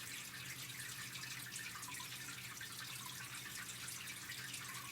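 Steady faint hiss with a low electrical hum: the recording's background noise, with no other event.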